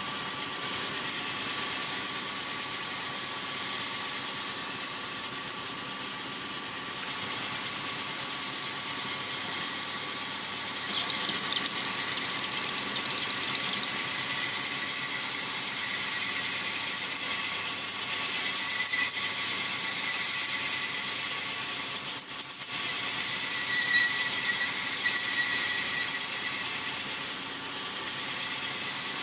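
Honing machine running its stones in a cylinder bore of a Perkins 248 engine block, with a steady high-pitched squeal over the machine's running noise. A brief warbling tone joins in about eleven seconds in.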